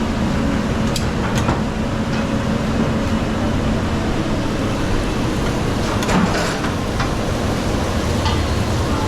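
Busy restaurant din: a steady background rumble with a few sharp metal clinks, once about a second in, again a moment later, and a short cluster about six seconds in.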